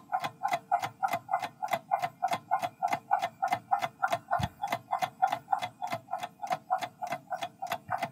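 Tick-tock sound effect of a quiz countdown timer, ticking evenly at about four ticks a second while the answer time runs down.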